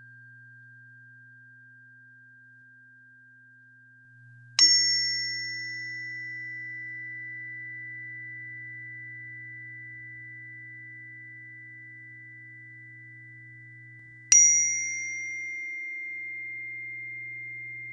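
A pure, bell-like metallic tone struck twice, about four and a half seconds in and again about fourteen seconds in; each strike has a bright edge that fades within a second or two, then a single clear pitch that rings on and slowly dies away. A faint steady low hum lies underneath.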